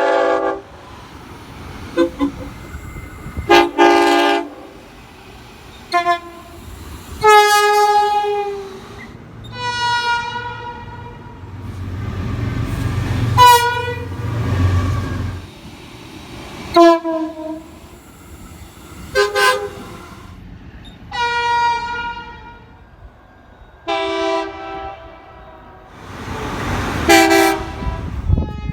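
Locomotive air horns sounding a series of short and long multi-note blasts, some bending in pitch as the train passes. A train's low rumble rises in the middle.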